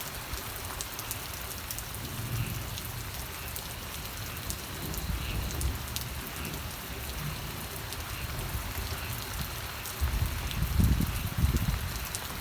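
Steady rain falling on a surface, with individual drops ticking, and a low rumble that swells louder near the end.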